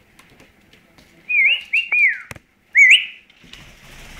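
Caique whistling: three short, wavering whistles, two close together with the second sliding down at its end, then a third about half a second later. A sharp click follows the second whistle, and a soft scuffling noise comes in near the end.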